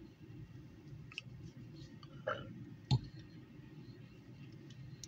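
Low steady hum inside a car cabin, with a few faint clicks and taps and one sharper click about three seconds in.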